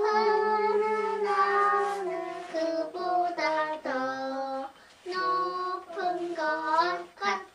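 A young girl singing a song unaccompanied, holding steady notes in short phrases, with a brief break about five seconds in.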